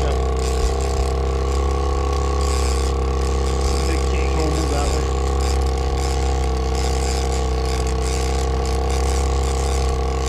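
Boat's outboard motor running steadily at trolling speed, a constant low drone that holds the same pitch throughout.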